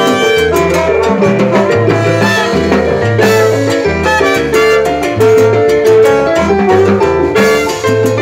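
Live salsa band playing an instrumental passage without vocals: an electric bass line of separate low notes under drum kit and percussion, with held tones from the rest of the band above.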